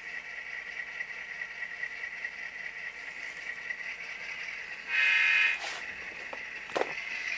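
Model locomotive's Tsunami sound decoder playing a diesel locomotive sound through its small speaker: a thin, tinny steady hum, with one short horn blast about five seconds in. A brief knock follows near the end.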